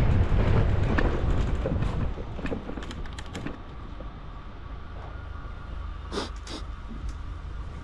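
Ride noise from a camera on a moving bicycle: a low rumble of wind and road that fades over the first two seconds, then a quieter rumble with scattered light clicks and rattles and two sharp clicks a little past the middle.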